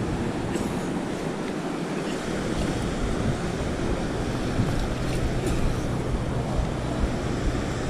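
Ocean surf washing on the beach, with wind buffeting the microphone. A few faint clicks sound, and a low steady hum comes in about five seconds in.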